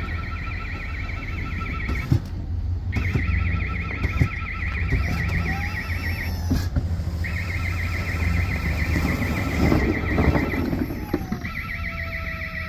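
An engine running steadily under a rapidly warbling two-pitch warning alarm that sounds in bursts of about three seconds with short breaks, with a few knocks and squeaks.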